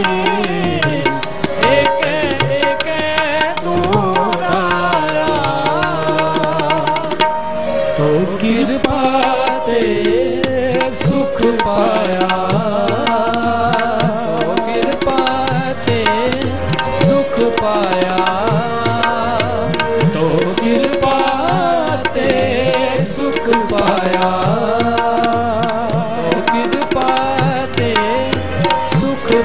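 Sikh kirtan music: harmonium melody over a continuous tabla rhythm.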